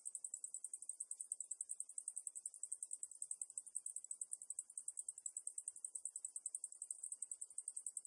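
Cicadas singing: a steady, high-pitched buzz pulsing rapidly and evenly.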